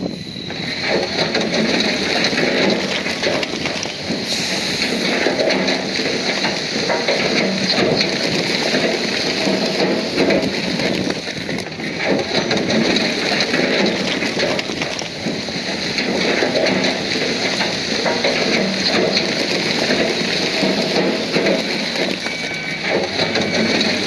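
Bulldozer pushing stone and dirt: a loud, steady, dense crunching and grinding noise of rock being shoved along under the blade and tracks.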